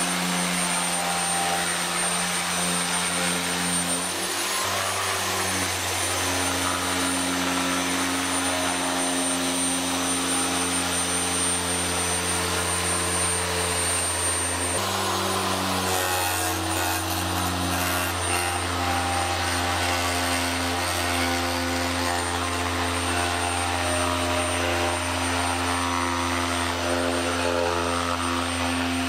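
Festool TPE-RS 100 electric carpet remover running, its oscillating scraper blade stripping glued carpet residue off the floor with a steady mechanical hum and buzz. The sound changes abruptly about four and a half seconds in and again about fifteen seconds in.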